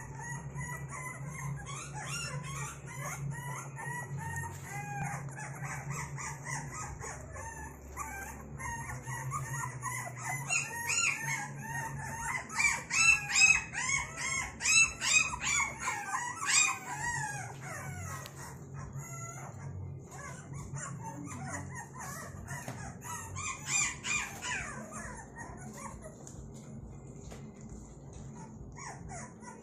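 A litter of young puppies whining and yelping in many short, high-pitched squeals that overlap, loudest about halfway through, over a steady low hum.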